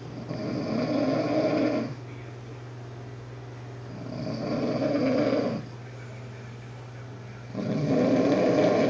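A sleeping person snoring loudly: three long snores of about a second and a half each, coming about every three and a half seconds, with the last one running on at the end.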